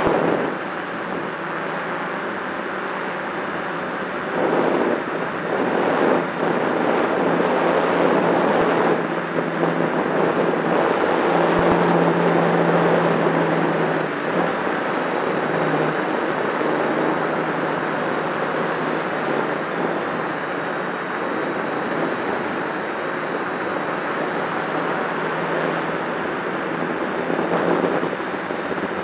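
DJI F550 hexacopter's six motors and propellers running in flight, heard from a camera on the frame: a steady rushing drone mixed with wind on the microphone. A low hum in it shifts up and down in pitch now and then as the throttle changes.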